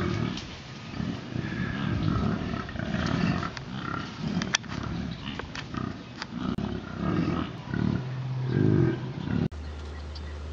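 American bison grunting over and over, low calls each about half a second to a second long, overlapping as several animals call. About nine and a half seconds in, the calls cut off abruptly and a steady low hum takes over.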